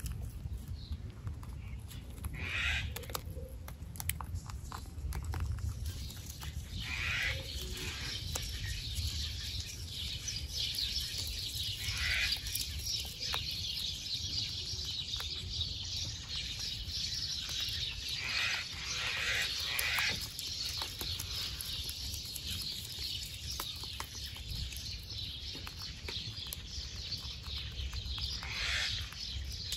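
Baby rabbits nibbling apricot leaves and twigs held out to them, with small chewing clicks, over a low steady rumble and high chirping in the background.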